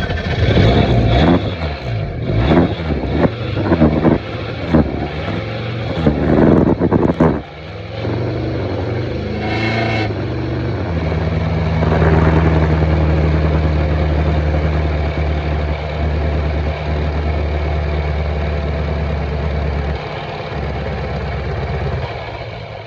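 Engine of a second-generation DSM car running unevenly, its revs surging and dropping for about seven seconds, then settling into a steady idle.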